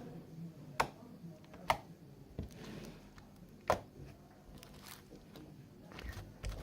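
Fluffy slime being squeezed and poked by hand for ASMR, giving a few sharp clicks spaced about a second apart over soft faint squishing, with louder low thumps starting near the end.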